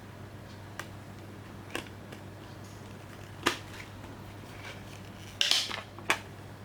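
Blu-ray packaging being handled: a few sharp plastic clicks and taps spread out, with a brief scraping sound about five and a half seconds in that is the loudest part, over a steady low hum.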